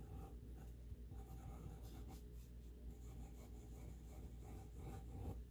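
Pelikan M150 fountain pen nib writing on paper: faint, irregular scratching strokes as the freshly inked pen is tried out.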